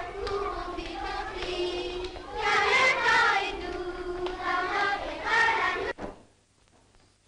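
A group of young children singing a song together. The singing cuts off suddenly about six seconds in, leaving near silence with a few faint ticks.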